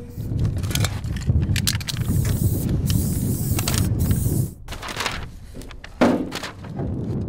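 Wind buffeting the microphone in a steady low rumble, with large paper stencil sheets rustling and crackling as they are handled.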